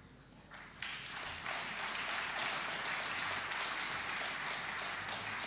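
Audience applauding, breaking out suddenly about a second in and holding steady.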